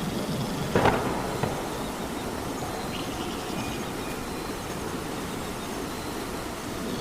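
Steady rainfall, with one short louder burst about a second in and a smaller click just after.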